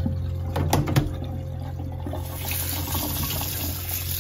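A few light knocks as a plastic basket is handled in a stainless steel sink, then tap water starts running onto sliced bitter gourd about halfway through, as a steady hiss. A steady low hum sits underneath.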